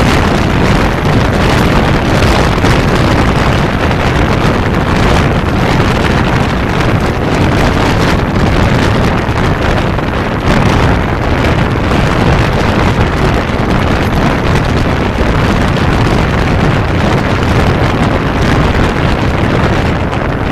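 Loud, steady wind rush on the microphone of a motorcycle at road speed, with the 1992 Kawasaki Zephyr 550's air-cooled inline-four engine and road noise running underneath.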